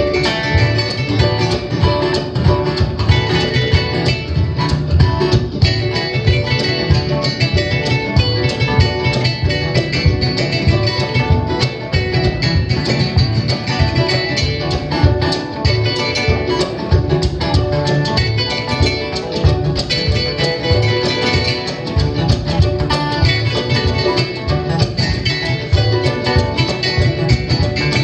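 Acoustic band playing an instrumental that blends bluegrass with West African music, plucked strings to the fore: guitar and kamale ngoni over a steady rhythm.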